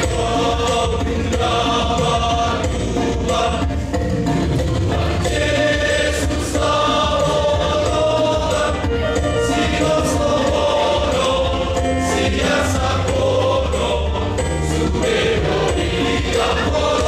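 Choir singing a Batak-language song, holding sustained notes at an even loudness.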